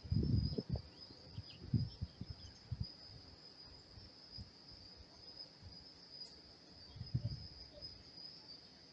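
Crickets chirring steadily at a high pitch, with a few short low rumbles breaking in during the first three seconds and again near the end.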